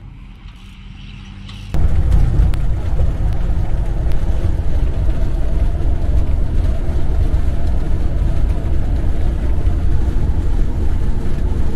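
Steady rumble of a vehicle driving at road speed, engine and road noise, starting abruptly about two seconds in.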